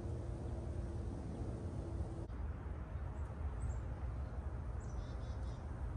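Outdoor creekside ambience: a steady low rumble, a faint steady hum that stops about two seconds in, and a few faint, short, high chirps like distant birds.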